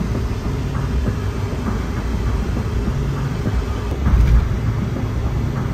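Road noise inside a car at highway speed: a steady low rumble of tyres and engine, with a louder bump about four seconds in.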